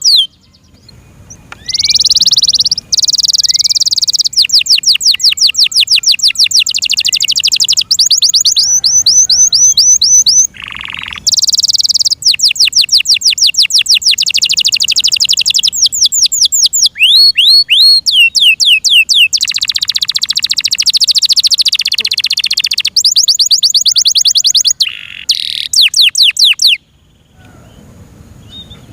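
F1 Yorkshire-cross canary singing: long trills of fast repeated sweeping high notes, changing from one note type to the next and broken by brief pauses. The song stops near the end.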